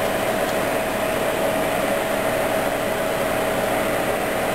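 Steady hum of a fan motor: an even rushing noise with one constant whine.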